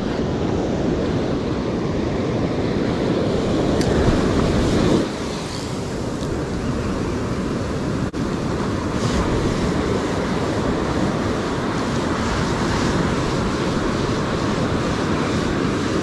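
Ocean surf breaking and washing up the beach, with wind buffeting the microphone. The noise eases a little about five seconds in and dips briefly just after eight seconds.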